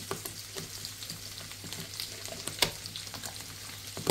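Food sizzling and crackling in a hot pan, with scattered sharp pops, the strongest about two and a half seconds in and at the very end, over a low steady hum.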